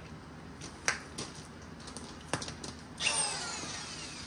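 Handling noise as a drill and its cord are picked up and moved about: a few sharp clicks, then about three seconds in a louder scraping rattle that falls in pitch and fades.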